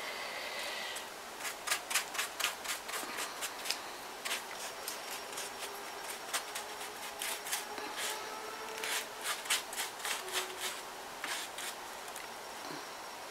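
Hands pressing and smoothing paper mache on a figure: irregular rustling and small crackles of paper.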